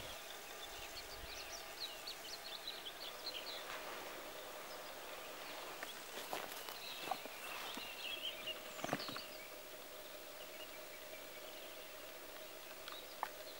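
Faint forest ambience with small birds chirping in short, quick series, mostly in the first few seconds and again around the middle, and a few soft clicks.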